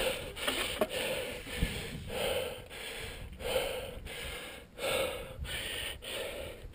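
Heavy, rapid breathing of a climber labouring up the steep granite cable route, one breath after another with short gaps, about one and a half breaths a second.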